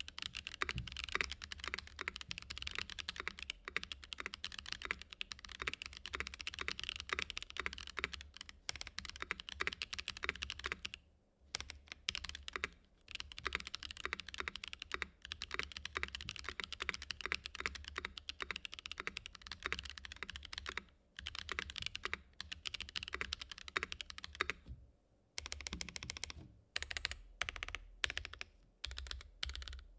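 Typing on an Ikki68 R2 custom mechanical keyboard with stock Boba U4T tactile switches on an aluminium plate and Domikey ABS keycaps: a fast, dense run of keystrokes. Short pauses break it a few times, and near the end it thins to separate single key presses.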